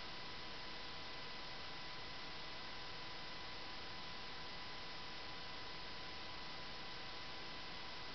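Steady background hiss with a faint, unchanging high tone running through it, and nothing else: the noise of the recording itself.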